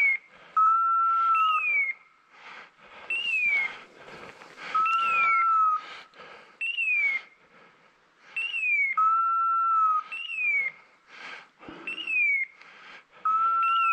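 Electronic beeper collar on a hunting setter, repeating a pattern of short falling whistles and a held steady tone every few seconds. Between the tones, brush and branches rustle loudly as someone pushes through thick scrub.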